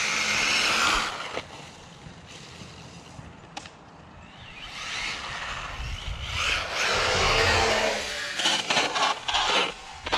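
Battery-powered RC truck running at speed on pavement: a loud rush of tyre and motor noise in the first second, quieter for a few seconds, then building again from about five seconds in, with a run of quick knocks near the end.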